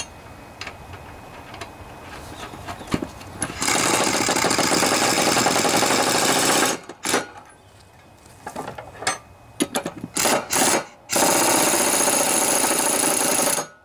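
Pneumatic impact wrench hammering a mower blade bolt tight onto the deck spindle. It runs for about three seconds starting some four seconds in, gives a few short bursts, then runs again for about two and a half seconds and stops.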